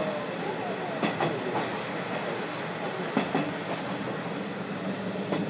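Running noise heard inside a Series 50 passenger coach, Ohafu 50-702, recorded with a window slightly open. The wheels click sharply over rail joints at uneven intervals, over a steady rolling rumble.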